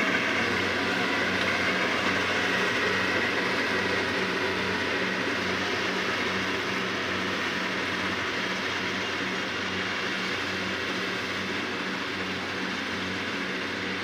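Rice combine harvester running steadily, a constant engine hum with a faint even pulse over a wash of machine noise, growing slowly fainter as it moves away.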